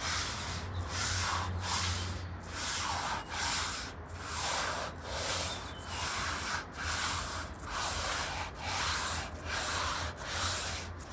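Hand sanding of white primer on a guitar body: even back-and-forth strokes of abrasive on the painted surface, about one pass every 0.8 seconds, steady and unbroken.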